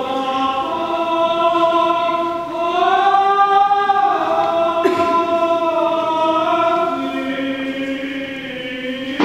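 Choir chanting Byzantine liturgical chant in long held notes, several voices moving slowly from pitch to pitch, with the melody rising and falling in the middle.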